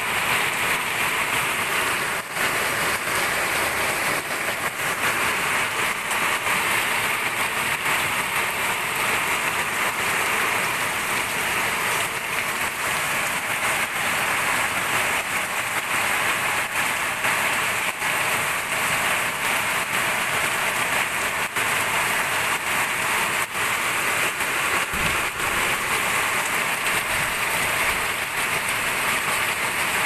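Heavy rain falling steadily, an even, unbroken hiss of a downpour.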